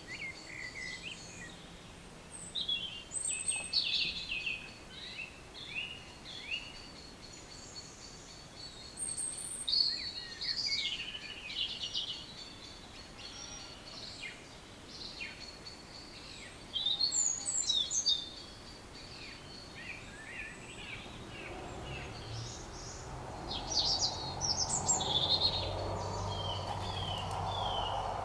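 Songbirds singing in short separate phrases of chirps and whistles, with pauses between bouts. A low rumble rises in the background over the last several seconds.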